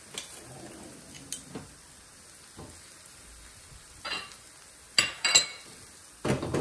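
Grated onion frying in oil in a wok, a steady sizzle, stirred with a wooden spoon; a few sharp knocks about five seconds in.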